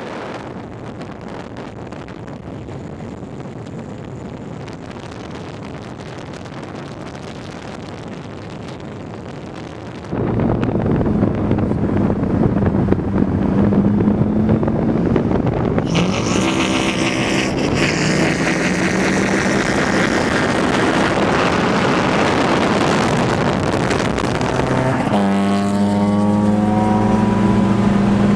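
Steady car road noise, then after about ten seconds a sudden louder stretch of car engines running and revving. Near the end one engine rises in pitch as it accelerates, then holds steady.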